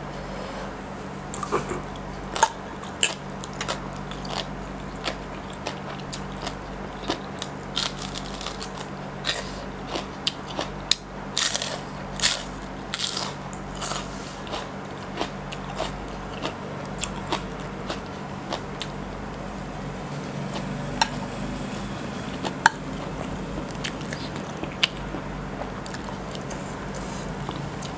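Close-miked eating sounds: a person bites and chews shredded green papaya salad and raw lotus stem, making a run of sharp, wet crunches. The crunches are densest in the first half and thin out later, over a low steady hum.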